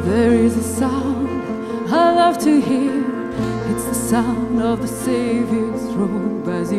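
A woman sings a slow worship song with wavering, held notes over sustained low accompaniment chords that change every couple of seconds.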